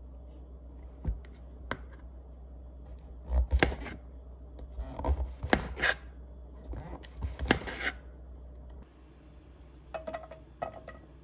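Small objects being handled: irregular clicks, rubs and scraping clatters, heaviest in two clusters in the middle, over a steady low hum that stops near the end.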